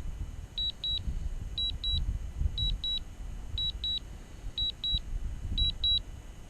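DJI Mavic remote controller sounding its alert in double beeps, about one pair a second, while the drone flies its automatic return home on low battery. Low wind rumble on the microphone underneath.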